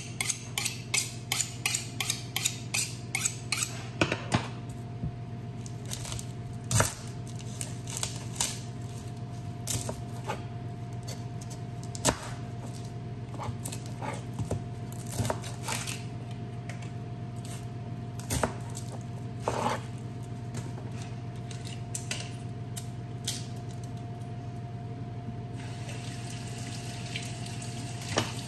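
A kitchen knife drawn along a honing steel in quick scraping strokes, about three a second, for the first four seconds. Then the knife cuts an onion on a plastic cutting board, the blade knocking on the board now and then. Near the end a tap starts running into the sink, over a steady low hum.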